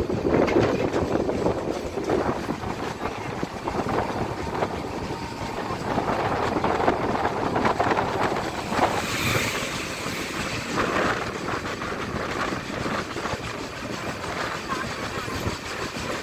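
Wind and rail noise from a moving passenger train, with an Indian Railways WAG-9 electric locomotive hauling freight wagons passing close by on the adjacent track. It gets brighter and hissier as the locomotive goes by about halfway through, then gives way to the clatter of the wagons rushing past.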